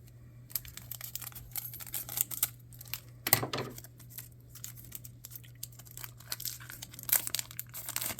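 Trading card wrapper crinkling and tearing as a pack is opened and the cards handled: a run of short, sharp rustles and snaps, the loudest about three seconds in. A faint steady hum lies underneath.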